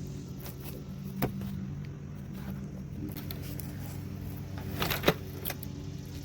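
Steady idling of a vehicle engine, with a sharp click about a second in and a short crackle ending in a snap around five seconds in.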